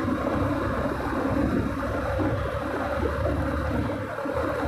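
Two-wheeler's engine running with wind rushing over the microphone while riding through traffic: a steady low hum under a continuous noisy rush.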